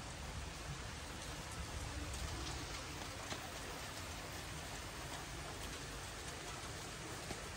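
Steady summer rain falling, with individual drops tapping here and there.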